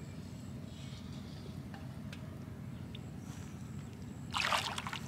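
Water splashing and dripping briefly near the end as a wet fishing net is lifted out of a pond, over a steady low rumble.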